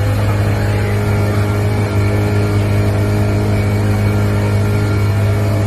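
Motor vehicle engine running steadily: a loud, constant low hum with a stack of steady overtones.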